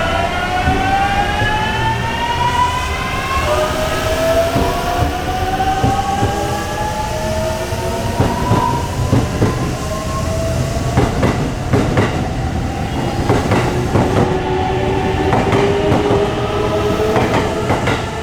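Electric train's VVVF inverter traction motors whining as it pulls away, several tones rising in pitch and jumping to new notes a few times as it gathers speed. From about eleven seconds in, the wheels clack rhythmically over rail joints as the cars pass.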